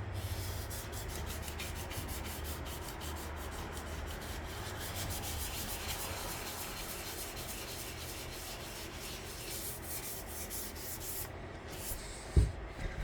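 Sandpaper rubbed by hand over the primed hood of a 1958 Johnson outboard motor in quick, steady back-and-forth strokes. The sanding stops about two seconds before the end, and a single short knock follows.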